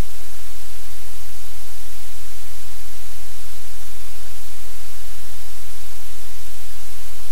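Loud, steady static-like hiss with a deep hum underneath, unchanging throughout.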